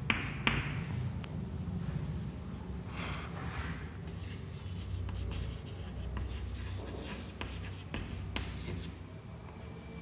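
Chalk writing on a chalkboard: sharp taps and short strokes as arrows are drawn and a word is written, over a steady low background hum.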